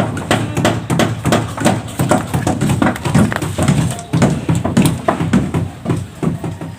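Rapid, irregular knocking on wood, several blows a second, like hammering on wooden stair formwork.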